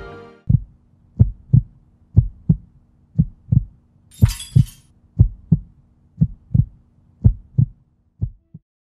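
Heartbeat sound effect: low double thuds, about one lub-dub a second, fading near the end, over a faint steady hum. A brief high hiss a little past four seconds in.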